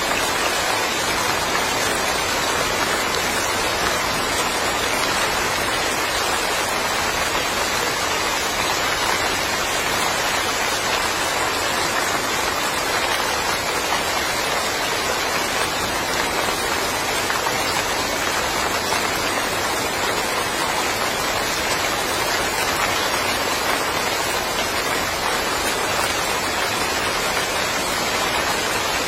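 Steady rain falling on a yard, an even dense hiss of drops that holds the same level throughout.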